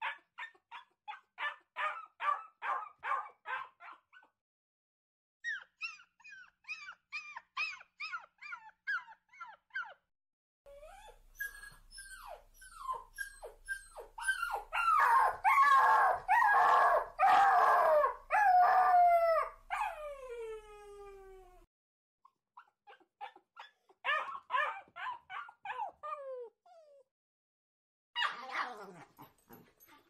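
Medium-sized dogs barking in quick runs of about four barks a second, separated by short pauses. In the middle stretch several dogs bark over one another, louder, with drawn-out howls that slide down in pitch.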